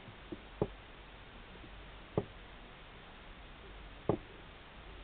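Four light, short taps, spaced irregularly with the last one doubled, from a fingertip tapping the iPod touch's touchscreen, over a faint steady hiss.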